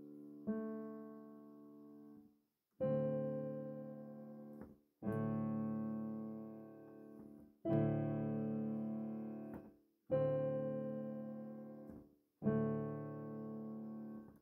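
Background piano music: slow sustained chords struck about every two and a half seconds, each one fading away before the next.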